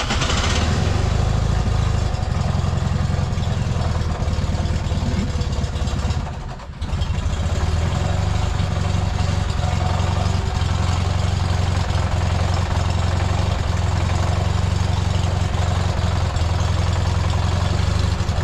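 Fiat 126p's 600 air-cooled two-cylinder engine catches and runs at idle with a steady low pulsing beat, the car having refused to start before. Its sound sags briefly about six seconds in, then it runs on evenly.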